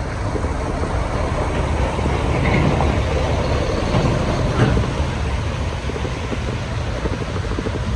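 Road traffic in the rain: a vehicle passes on a wet road, growing louder around the middle, over a steady low rumble of wind on the microphone.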